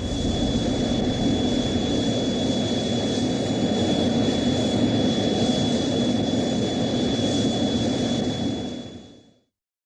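Ultraman Star's flying sound effect: a steady jet-like rushing noise with a thin high whistle held throughout, fading out about nine seconds in.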